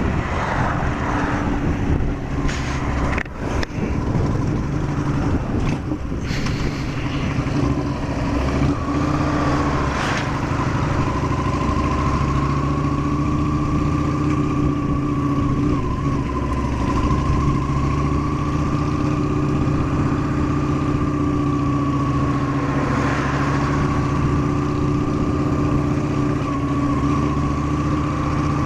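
Honda Shadow 750 V-twin running steadily under load on a climb, its pitch wandering only slightly. A few sharp knocks sound in the first few seconds.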